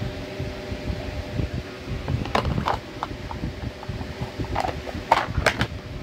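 Red plastic pencil box with broken hinges being handled: sharp plastic clicks and taps as the lid is closed and taken off. The clicks come in two clusters, about two and a half seconds in and again near the end, over a steady fan hum.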